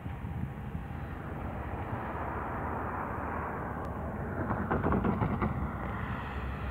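CSX freight train of covered phosphate hopper cars rolling along the track: a steady low rumble of steel wheels on rail, with a short run of clicks about five seconds in.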